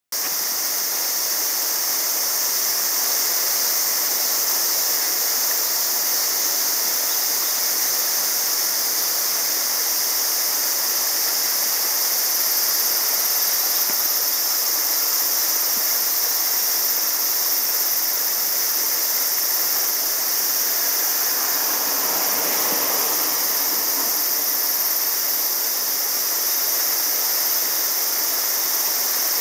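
Mountain river running over shallow rocky riffles: a steady, hissing rush of water.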